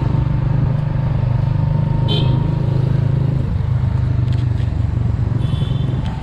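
Vehicle engine running steadily while moving through city traffic, with short high beeps about two seconds in and again near the end.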